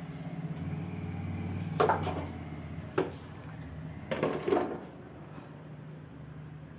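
Metal cutlery clinking and scraping against a steel plate, with a few sharp clinks about two, three and four seconds in, over a low steady hum.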